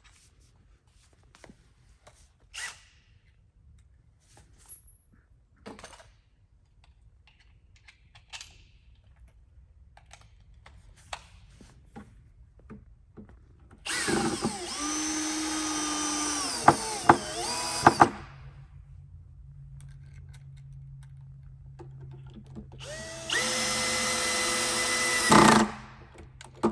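Power drill driving small screws into a desk paddle switch's housing: two runs of the motor, about four seconds and then about two and a half seconds, the first slowing near its end. Before them, light clicks of small parts being handled.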